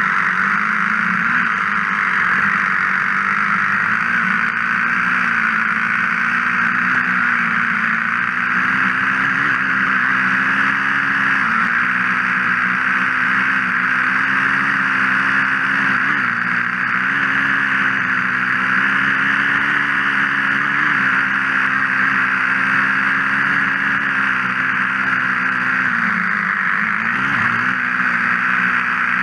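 Small engine of the vehicle being ridden, running at a fairly steady speed and easing off briefly a few times, over a steady hiss.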